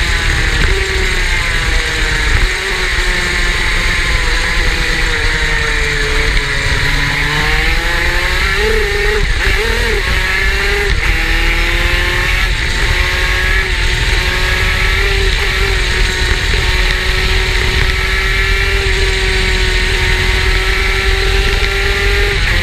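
Superkart's two-stroke engine running at high revs throughout. About six seconds in the revs drop, waver for a couple of seconds, then climb back and hold steady for the rest of the run.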